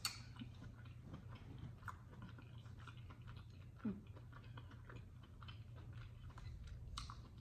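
Close-miked chewing of a mouthful of chitterlings (pork intestines) in hot sauce: many small wet mouth clicks and smacks. There is a sharp click at the start as the fork touches the serving dish, and a short louder low sound about four seconds in.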